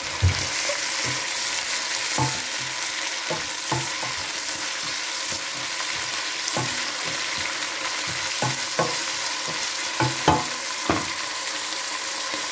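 Onions, green beans and corn sizzling in a stainless steel pot as a wooden spatula stirs them, with a steady hiss and irregular knocks and scrapes of the spatula against the pot.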